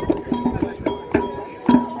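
Candomblé toque: atabaque drums and a metal bell struck in a quick, even rhythm, about three or four strokes a second.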